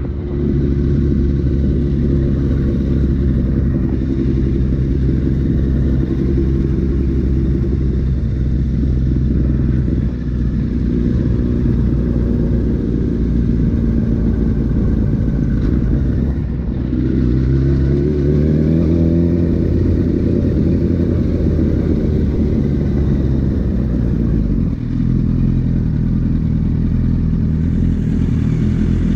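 Sport motorcycle's inline-four engine running at low, steady revs in town riding, heard on a bike-mounted camera, with a smooth rise in revs a little past halfway as it accelerates before settling again.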